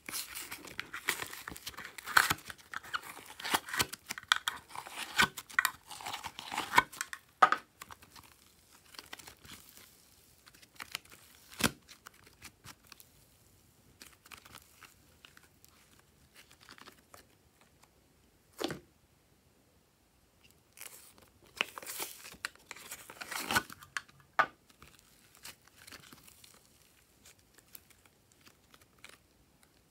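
Thick slime being squeezed out of a plastic container and stretched by hand, making sticky crackling and tearing sounds. A dense run of crackles fills the first seven seconds or so, then come a few single sharp clicks, and another burst of crackling follows about 21 seconds in.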